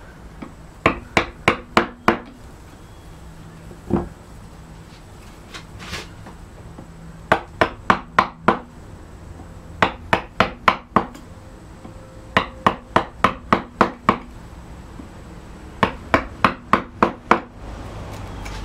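Carving gouge struck with a mallet, cutting into a carved wooden board: five quick runs of five to seven sharp taps, about three a second, with short pauses between runs and a couple of single taps.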